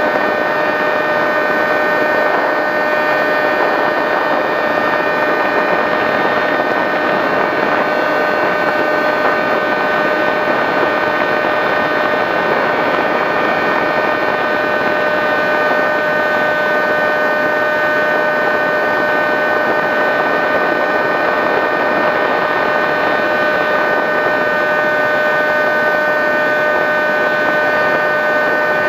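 Skywalker V6 FPV plane's 910kv brushless electric motor and propeller running at steady cruise throttle, a steady whine at constant pitch over rushing air, picked up by the camera on board the plane.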